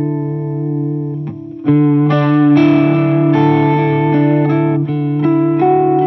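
Electric guitar played through a DIY Phaser 45 clone pedal. A held chord rings and fades, then after a short dip, about one and a half seconds in, new chords are struck several times.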